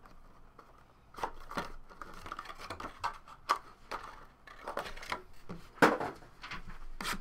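Cardboard trading-card box being handled and opened: scattered light scrapes, taps and clicks as the sleeve is slid apart and the inner box is moved, with a sharper knock about six seconds in as a box is set down on the table.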